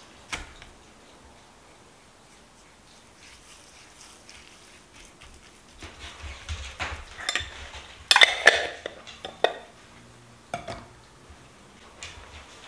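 Kitchen utensils and cookware clinking and clattering in a cluster of sharp strokes, loudest about eight seconds in, with a single click near the start and a few lone clicks near the end.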